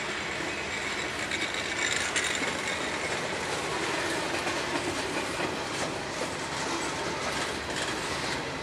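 Freight train's flatcars and boxcars rolling past close by: steady wheel-on-rail noise with occasional clicks of the wheels over rail joints.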